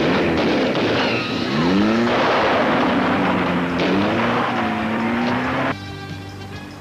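A vehicle engine revving and accelerating, its pitch rising in steps. It cuts off abruptly near the end, when music comes in.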